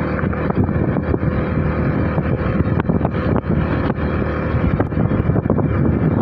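Honda CD 70 motorcycle's small single-cylinder four-stroke engine running steadily while riding, with wind buffeting the microphone.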